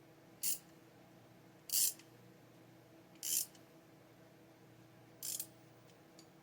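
Threaded bushing-puller tool being cranked by hand to draw a bushing into a piston assembly: four short, sharp strokes of the tool about one and a half seconds apart.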